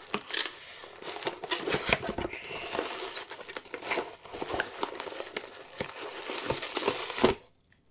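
Rummaging through an opened cardboard shipping box: crinkling and rustling of packing material and a plastic mailer, with light knocks and clicks of cardboard. It stops abruptly near the end.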